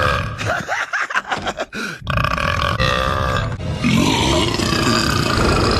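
Cartoon animal characters belching, in several edited-together clips. There are short, wavering burps in the first two seconds, an abrupt cut, and then a long drawn-out belch from about four seconds in.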